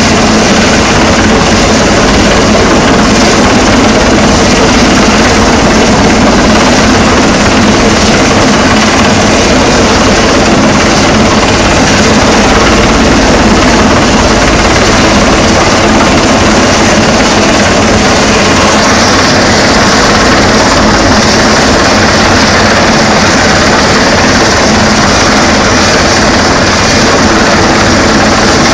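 Coastguard search-and-rescue helicopter hovering low overhead. Its rotor and engine noise is loud and steady.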